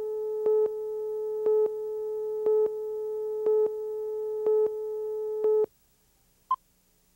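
Countdown tone from a videotape leader: a steady electronic tone that gets louder for a moment once a second as the slate counts down, and cuts off suddenly about six seconds in. About a second later comes a single short, higher beep, the two-pop that marks two seconds before the programme starts.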